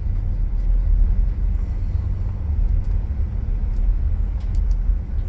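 Steady low rumble of a car driving along a dirt road, engine and tyres running evenly.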